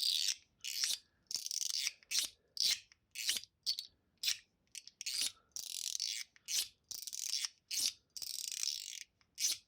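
Mechanical spring-and-ball fidget slider with a PEI middle plate being slid back and forth by hand: a quick series of short scraping slides, one or two a second, with brief silent pauses between.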